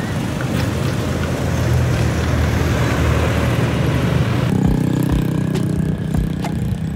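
A motor vehicle's engine running with road and wind noise, which changes abruptly about four and a half seconds in to a steadier, lower hum with less hiss.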